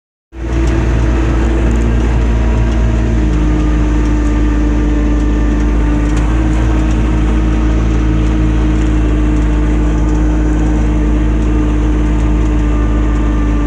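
An ATV engine running at a steady speed, with a constant low rumble and an even drone that does not rise or fall.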